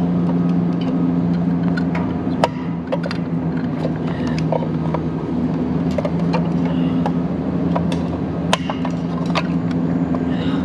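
Scattered sharp clicks and taps of a screwdriver and hands working plastic clips and connectors on a condenser fan motor's hub cover, the sharpest about two and a half seconds in and again near eight and a half seconds. Under them runs a steady low machinery hum.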